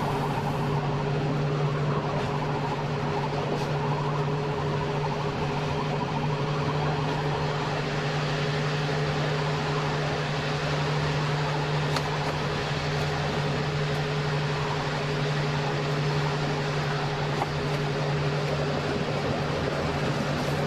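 Electric train heard from the driver's cab, running steadily along the track: a constant electrical hum over the even rumble of wheels on rails.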